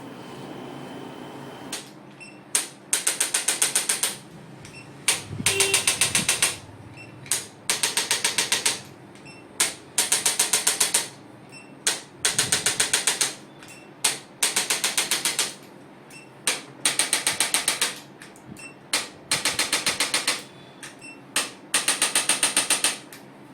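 Handheld chiropractic adjusting instrument firing against the spine in repeated bursts of rapid mechanical clicks. Each burst is a single click followed by a run of about eight to ten quick clicks, repeating roughly every two seconds, starting about two seconds in.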